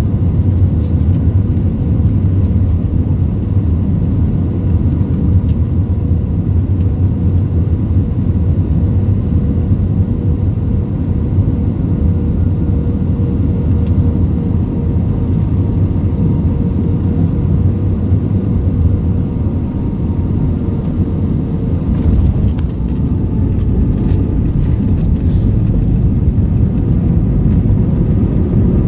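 Steady cabin noise of an Airbus A321 on its landing approach, heard inside the cabin from a seat over the wing: a loud engine and airflow rumble with a faint steady whine. About 22 seconds in the rumble shifts and a few faint rattles come in.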